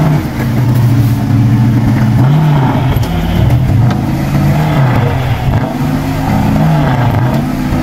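GAZ-66 truck's engine revving under load as the truck drives through deep snow, its pitch rising and falling several times.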